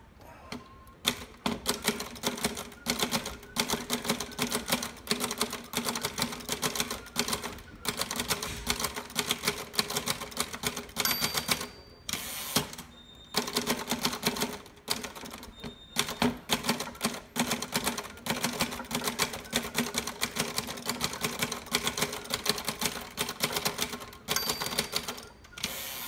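A 1948 Remington Noiseless Model 7 typewriter being typed on at a steady pace, a rapid run of soft keystroke clacks with short pauses. Its noiseless action presses the type bars against the platen instead of striking it, so it is quieter than a regular typewriter but not silent. A brief ring, typical of the margin bell, comes about halfway through and again near the end, with a carriage return between the two lines.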